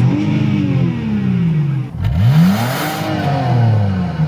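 Car engine revved while parked, twice: each time the pitch climbs quickly and then drops back slowly toward idle.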